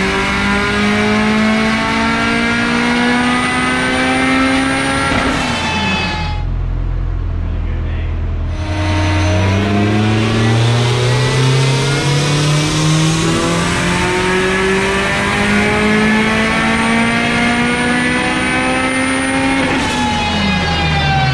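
Turbocharged Honda B20 four-cylinder in an Acura Integra making wide-open-throttle pulls on a chassis dyno. The revs climb steadily until about five seconds in, then fall away as the throttle closes. After a few seconds low down, the revs climb again in one long pull and drop off near the end.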